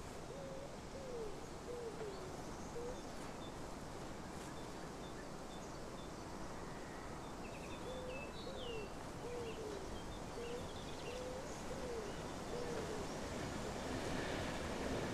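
A dove cooing in two phrases of five or six low notes, about eight seconds apart, over faint open-air ambience, with a few high chirps from another bird in between.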